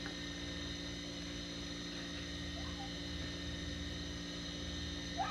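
A steady machine hum made of several even tones, low and high, unchanging throughout.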